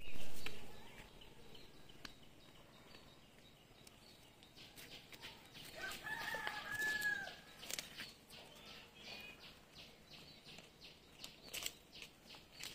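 A rooster crows once, a long call about six seconds in. A brief loud noise comes right at the start, with faint scattered clicks.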